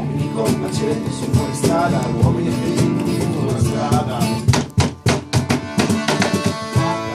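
Live acoustic folk-rock music: a diatonic button accordion and strummed acoustic guitars playing an instrumental passage, with a few short stabbed chords about halfway through.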